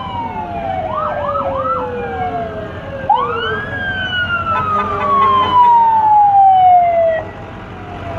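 Fire truck sirens wailing in long sweeps that rise quickly and fall slowly, more than one siren overlapping, with three quick whooping chirps about a second in. A steady horn sounds loudest about two-thirds of the way through.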